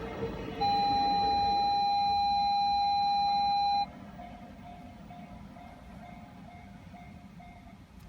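A loud, perfectly steady whistle note sounds for about three seconds, starting and stopping abruptly, over a level crossing's electronic alarm ringing about twice a second, which stops near the end. A train's low rumble dies away in the first second.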